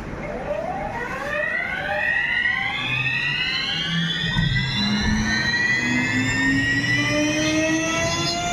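CNC router spindle spinning up: a whine of several tones that rises steadily in pitch and settles into a steady high note near the end.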